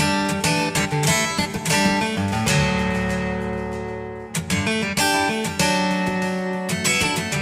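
An LG phone ringtone played as music on plucked and strummed guitar. Short phrases of notes run through it, and about halfway through a chord rings out and fades for nearly two seconds before the melody picks up again.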